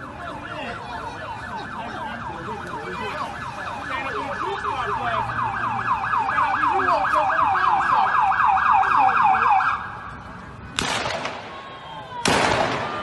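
An emergency vehicle siren sounds in a fast yelp, its pitch sweeping over and over several times a second. It grows louder as it nears, then cuts off suddenly about ten seconds in. Two short bursts of rushing noise follow near the end.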